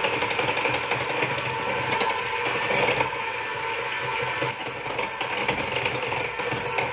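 Electric hand mixer running steadily at medium speed, its beaters whirring through a runny batter in a glass bowl.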